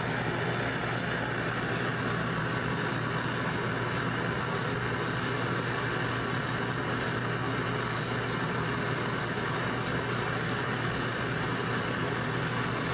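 Flame of a bead-making burner running with a steady, even rush and a constant low hum.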